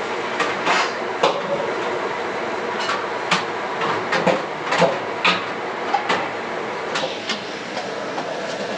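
Thick lamb curry in coconut milk boiling in a pot: large bubbles popping irregularly, about once a second, over a steady hiss.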